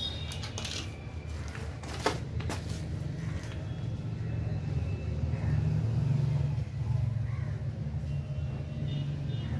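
A steady low rumble that grows a little louder about halfway through, with a few light clicks of metal grinder parts being handled and one sharp click about two seconds in.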